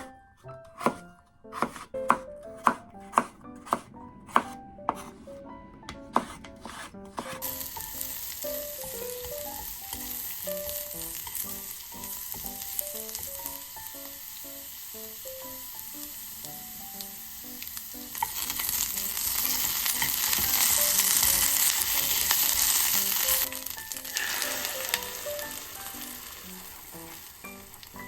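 A run of sharp knocks, then food sizzling in a frying pan, the sizzle swelling louder for about five seconds past the middle before easing off, over soft background music.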